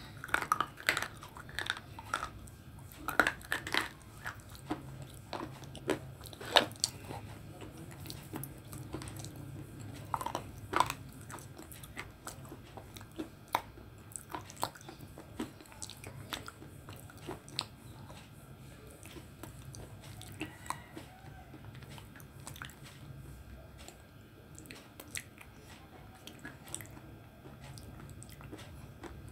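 Close-miked biting and crunching of a hard black clay bar, sharp brittle cracks with chewing between them. The bites come thick in the first ten seconds or so, then thin out into quieter, scattered crunches.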